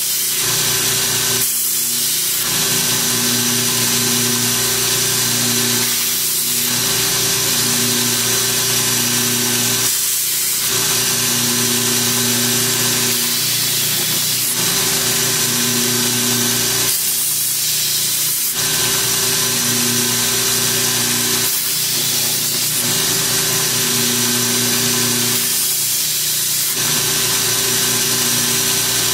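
Belt grinder running with a steel kukri machete blade ground against a 100-grit belt, reprofiling the edge. The motor hum is steady, and the grinding hiss dips briefly every four seconds or so between passes.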